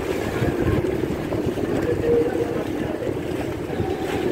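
Steady engine, wind and water noise aboard a moving motorboat.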